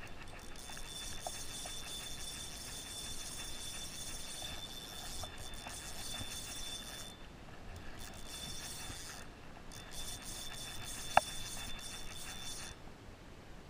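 Spinning reel cranked in runs, a rapid ratcheting whir that stops briefly twice and again near the end, as line is wound in against a hooked fish bending the rod. A single sharp click about eleven seconds in.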